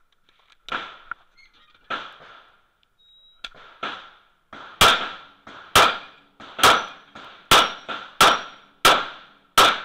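Smith & Wesson M&P9L 9mm pistol shots during a timed IPSC stage: a few weaker bangs in the first four seconds, then seven loud, sharp shots about a second apart, each with a short ringing echo under the range roof.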